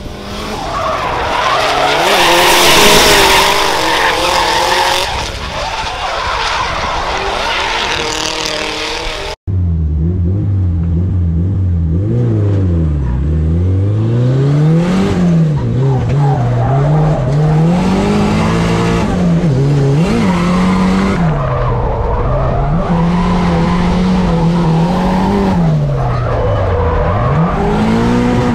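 Drift cars sliding through a bend with tyres screeching and engines revving hard. Then, after a cut, an onboard run inside a drift car: its engine revs climb and drop again and again as it is driven through the corners, with tyre noise beneath.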